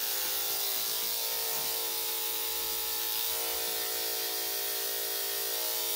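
Electric dog grooming clippers with a #40 blade switched on and running steadily, used to trim the hair between a small dog's paw pads.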